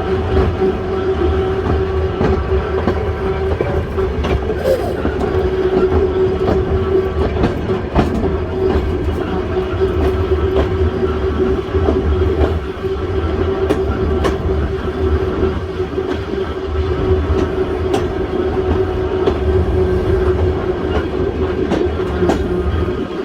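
Volk's Electric Railway car running along the track: a steady electric whine over a low rumble, with occasional clicks from the wheels.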